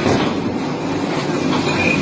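Coconut peeling machine running with a steady mechanical rumble and clatter, and a brief high squeal near the end.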